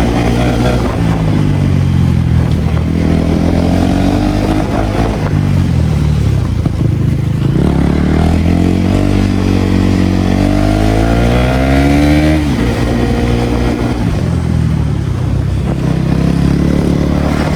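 KTM Duke 250 Gen 3's single-cylinder engine pulled hard on the move, its note climbing with the revs and falling back. A long climb ends in a sudden drop about twelve seconds in.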